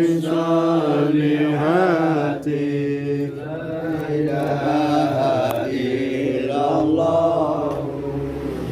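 Arabic devotional chanting (sholawat and prayer) sung in long, drawn-out notes that waver and bend in pitch.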